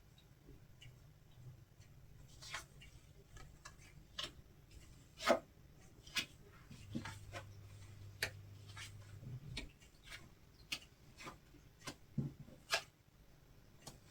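Tarot cards and dice being handled on a tabletop: scattered light clicks and taps at uneven intervals, the sharpest a single tap about a third of the way in.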